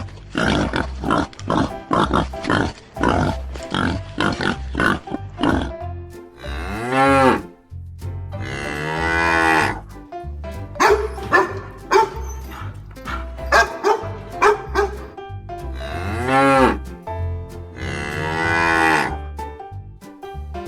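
Cow mooing four times in long, drawn-out calls that rise and fall in pitch, over background music with a steady beat.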